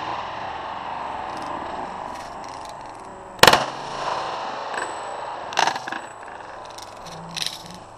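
.45-calibre Glock pistol fired once about three and a half seconds in, a single sharp report that rings out for about half a second. Fainter sharp cracks follow, around five and a half seconds in and near the end.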